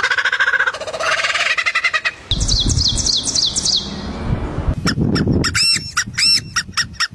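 Bird calls in three short changing stretches: a pulsing squawk, then a quick run of falling high notes, then a series of sharp arched chirps.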